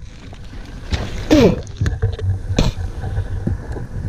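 Mountain biker down in the dirt after a crash: a short groan about a second in, among scuffing and rustling of body and bike on the gravel, with a sharp knock a little later.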